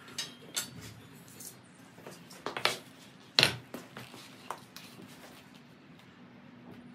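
Bent steel tubing being handled and set down on a concrete floor: several sharp metallic clinks and knocks, the loudest about three and a half seconds in, then only light scuffing.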